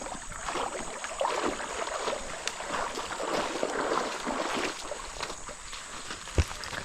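River water splashing and sloshing unevenly, with a single thump about six and a half seconds in.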